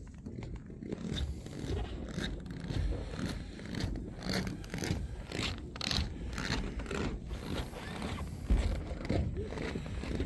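Footsteps crunching in snow at a walking pace, a short crisp crunch about every half second to two-thirds of a second, over a steady low rumble.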